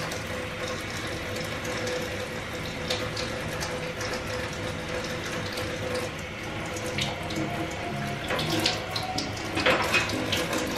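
Kitchen tap running steadily into a stainless steel sink while golden pheasant heads are rinsed by hand under the stream. A few splashes and knocks come in the last few seconds.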